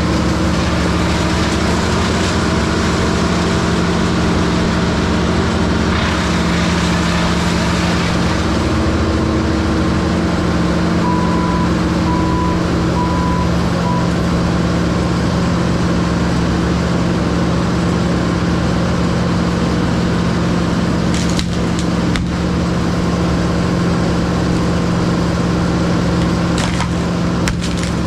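Heavy-equipment diesel engine running steadily under load, with a few sharp wood cracks in the second half. Four short beeps sound a little before halfway.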